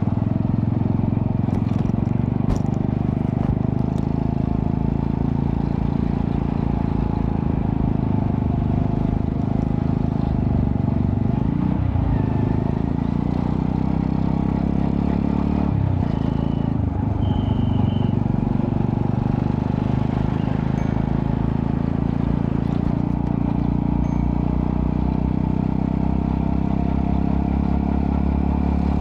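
Honda Astrea Prima 110cc single-cylinder four-stroke engine running through a custom underbelly exhaust with resonator. It holds steady, with the pitch dipping and recovering twice near the middle.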